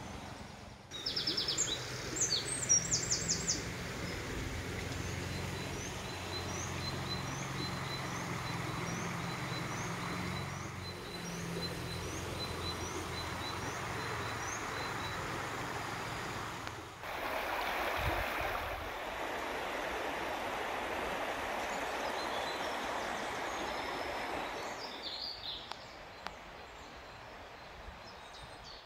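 River water flowing steadily, with wild birds singing: a burst of song near the start, then one bird repeating a short rising note about three times every two seconds. A low rumble sits under the first half, and the water is louder in the second half.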